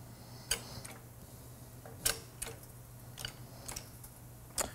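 A shop press slowly pressing a Del-A-Lum bushing into a Corvette lower control arm: a handful of faint, irregular clicks and ticks from the press and fixture over a low steady hum.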